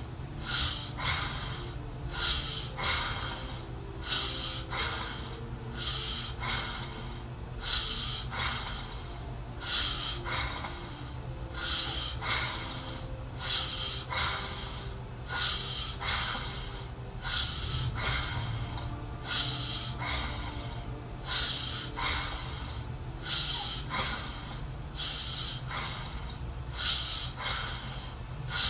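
A man snoring: noisy breaths, mostly in pairs, recurring about every two seconds over a steady low hum.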